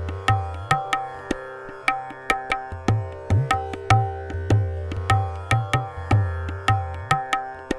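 Tabla playing the sixteen-beat Addha taal theka at about 150 beats a minute, its bass strokes ringing and some bending upward in pitch. Underneath runs a steady tanpura drone in C.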